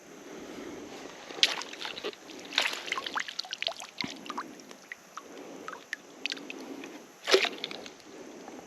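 Creek water splashing and sloshing: a run of small, irregular splashes, then a single louder splash about seven seconds in.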